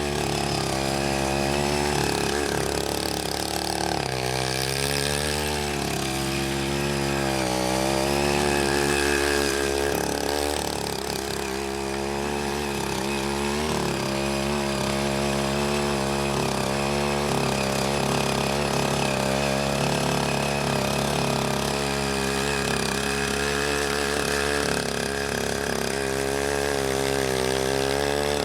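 Small engine of a CY80 walk-behind rotary tiller running under load as it churns wet paddy soil, its note rising and falling repeatedly.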